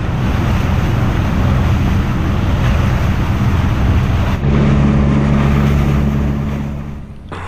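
Motorized outrigger boat under way: its engine running steadily over the rush of water along the hull. About four and a half seconds in, the engine note shifts and gets a little louder, then the sound fades near the end.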